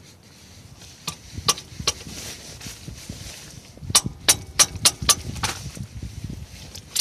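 Hand ratchet with a Torx bit socket working a bolt on the car's underside, making sharp metallic clicks: a few scattered clicks in the first two seconds, then a quicker run of clicks from about four seconds in.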